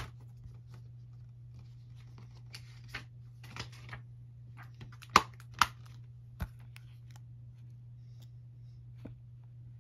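A plastic Blu-ray case and its packaging being handled: scattered rustling and crinkling with several sharp clicks, the two loudest about halfway through, over a steady low hum.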